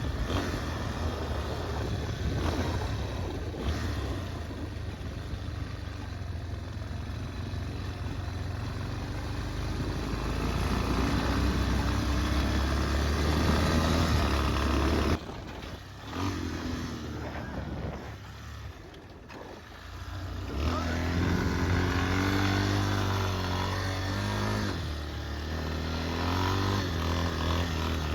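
Yamaha Warrior 350 ATV's single-cylinder four-stroke engine running under throttle while riding, its pitch rising and falling. It drops off sharply about halfway through, runs lower for a few seconds, then picks up again.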